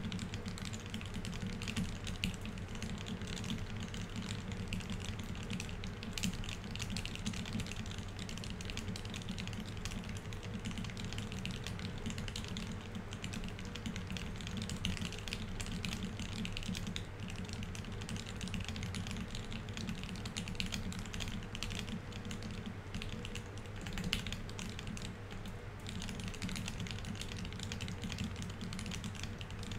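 Fast, continuous touch typing on a Keycult 1/65 custom mechanical keyboard with Tealios V2 67g linear switches lubed with 205g0 and GMK ABS keycaps: a dense, even stream of key clacks with no pauses.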